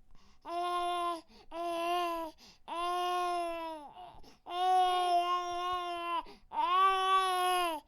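Baby crying in five wails, each about a second long and held at a steady pitch, the fourth the longest, with short breaths between them.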